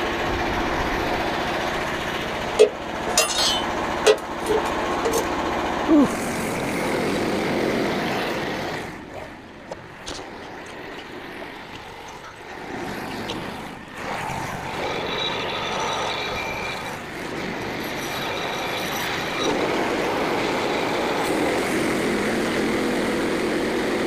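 Frontier OS27 portable band sawmill running, its engine and band blade working through a white pine log, with a few sharp knocks in the first six seconds and a quieter stretch midway.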